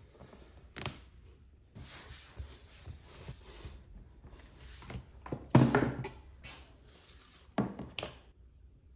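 A bamboo cutting board being handled and pressed down by hand onto double-sided tape on a plywood surface: hands rubbing across the wood, a knock about a second in, a loud wooden thump about halfway through, and two more knocks near the end.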